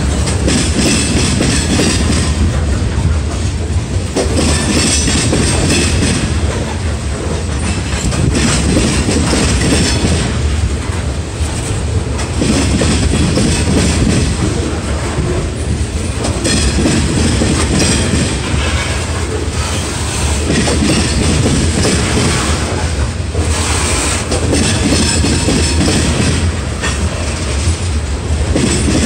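Covered hopper cars of a freight train rolling past close by: a loud, steady rumble and rattle of steel wheels on the rails, swelling and easing every few seconds.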